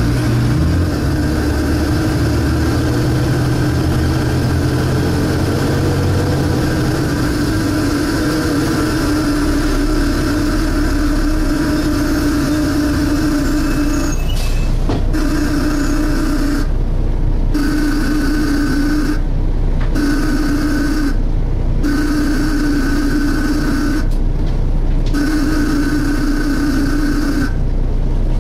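Volvo B7TL double-decker bus heard from on board, its engine running with a loud, steady suction noise. About halfway through the noise starts cutting out briefly and coming back every two to three seconds.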